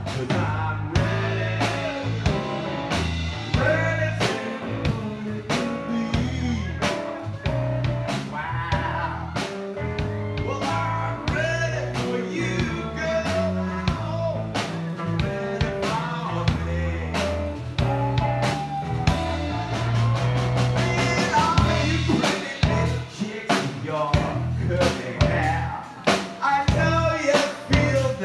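Live blues band playing: drums hit with sticks on a small stand-up kit, with electric bass and electric guitar, in a steady beat.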